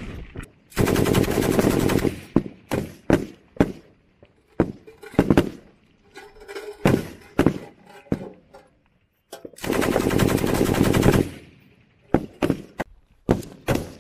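M240B 7.62 mm belt-fed machine gun firing two sustained bursts of about a second and a half each, a rapid even rattle of shots. Between and after the bursts come separate single shots and short pairs of shots.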